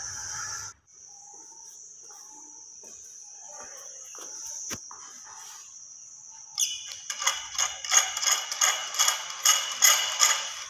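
A rusty metal wheel-handle valve on a water pipe being turned by hand, squeaking in short repeated strokes about three times a second over the last few seconds.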